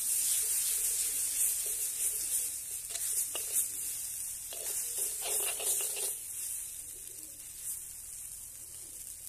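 Tomato masala sizzling in a hot kadai while a steel ladle stirs it and scrapes against the pan, with a run of scraping about halfway through. The sizzle eases off a little toward the end.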